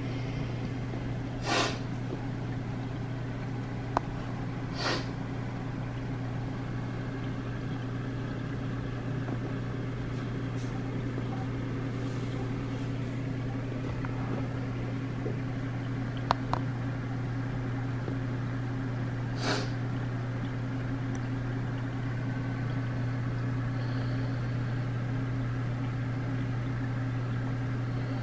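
Steady low electrical hum of reef aquarium pumps, with three brief soft noises partway through.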